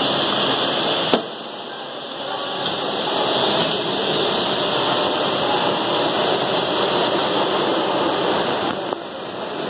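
Ribbon blender running, a steady mechanical rush as its helical ribbon agitator churns through a powdery mix. A sharp click comes about a second in, after which the sound dips for a moment, and it dips again near the end.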